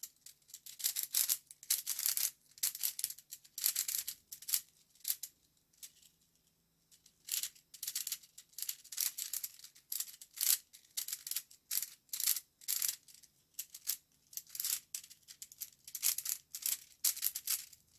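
Plastic twisty puzzle cube being turned rapidly during a solve: quick runs of clicking, rattling turns, with a pause of a second or two about six seconds in.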